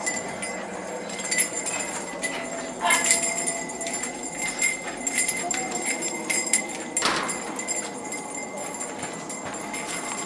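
Small metal bells jingling and clinking irregularly as they are shaken, with a louder jangle about three seconds in and again about seven seconds in.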